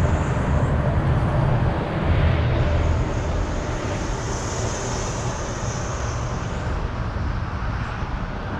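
Steady rumble of road traffic on a highway bridge overhead, with a faint high hiss that swells in the middle.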